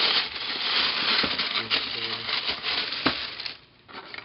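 Packaging rustling and crinkling as it is handled, with a couple of sharp knocks; the rustling stops about three and a half seconds in.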